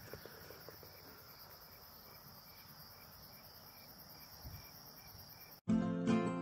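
Crickets trilling faintly and steadily in an evening field, a high pulsing chorus. About five and a half seconds in, an acoustic guitar tune starts suddenly and drowns it out.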